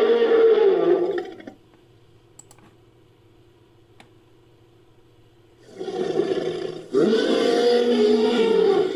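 Designed dinosaur roars for a Neovenator creature: one roar trails off in the first second and a half. After a pause with only a low hum, a second roar begins near the middle and swells again with a sharp new start about two seconds later.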